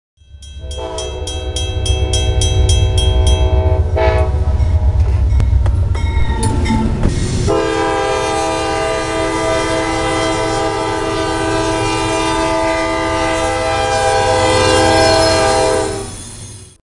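CSX freight locomotive's air horn blowing for a grade crossing: a long blast, a short one about four seconds in, then a very long blast from about seven and a half seconds on. The approaching train rumbles underneath during the first half.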